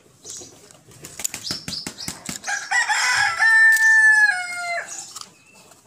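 A rooster crows once, starting about two and a half seconds in, with a long held note that steps down in pitch at the end. Before it, scissors snip and click on a plastic bottle.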